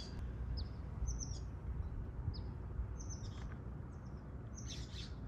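Wild birds chirping: short, high chirps repeating every second or so over a steady low background rumble.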